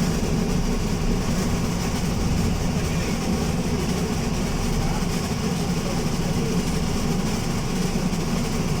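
Alexander Dennis Enviro200 MMC single-deck bus running with a steady, deep rumble that holds even throughout.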